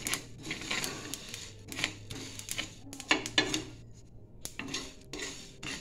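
Wooden spatula stirring whole spice seeds dry-roasting in a non-stick frying pan: a dry rattling scrape of seeds against the pan, with scattered sharp clicks and knocks and a short pause about four seconds in. A low steady hum runs underneath.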